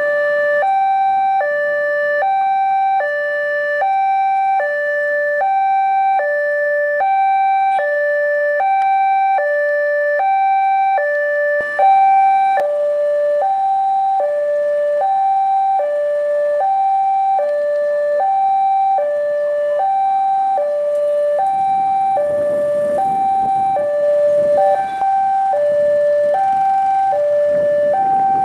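Indonesian railway level-crossing warning alarm: an electronic two-tone signal alternating high and low, about one high-low pair a second, sounding while the crossing is closed for an approaching train. About two-thirds of the way in, the low rumble of the approaching diesel train joins it.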